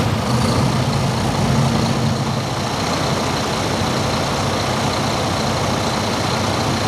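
International Navistar N13 inline-six diesel idling steadily, just started after its fuel filters were replaced and the fuel system hand-primed.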